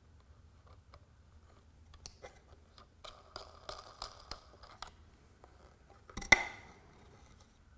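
Small handling clicks and scrapes of a plastic panel-mount socket being seated and turned in a hole in a thin plywood faceplate, starting about two seconds in, then one sharper knock about six seconds in.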